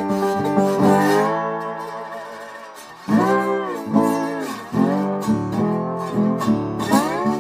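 Background music: a guitar piece with notes that slide and bend in pitch. It dips in loudness and comes back suddenly about three seconds in.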